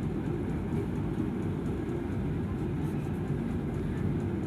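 Steady low background rumble, with faint strokes of a marker pen writing on a whiteboard.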